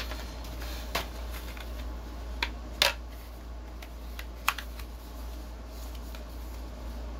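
White cardboard inserts and lid of a phone box being lifted and handled on a desk, giving light clicks and taps with four sharper knocks, the loudest about three seconds in, over a steady low hum.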